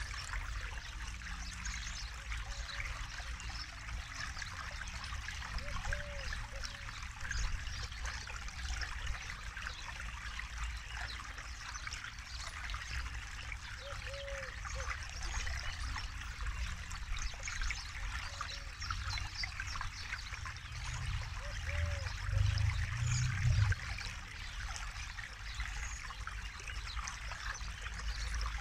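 Forest river flowing steadily, a continuous rush and trickle of water. Short low calls repeat every few seconds, and a low rumble swells briefly near the end.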